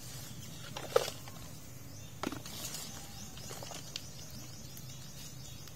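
Hands working through a basin of small dead fish: soft rustling and slithering, with a sharp click about a second in and a few fainter knocks against the plastic basin and cup.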